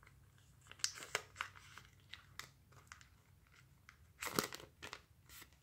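Foil trading-card booster pack wrapper being crinkled and torn open by hand: scattered crackles, with a louder burst of crinkling about four seconds in.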